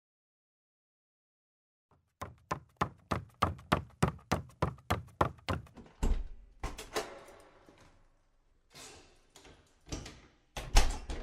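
Rapid knocking on a door, about four knocks a second for several seconds, then a heavy thud and clunks of the door being opened, with another loud bang of the door near the end.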